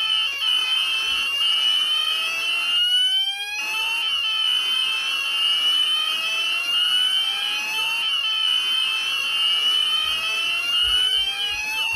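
Premier 9000 addressable fire alarm sounding its evacuation tone: a slow whoop that rises in pitch over about four seconds, three times over, with faster overlapping sweeps on top. It is the evacuate signal that runs between the recorded 'leave the building' messages.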